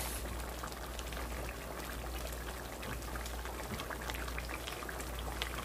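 Thick pepper sauce simmering in a pot, bubbling with many small pops over a steady hiss.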